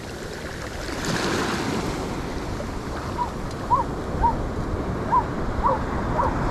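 Surf washing up the beach, swelling about a second in, with some wind on the microphone. From about halfway, a run of short high chirps repeats roughly every half second over the surf.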